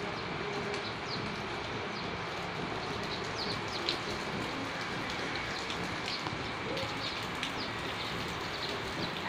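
Rain falling on a wet street: a steady hiss with scattered sharper drop sounds.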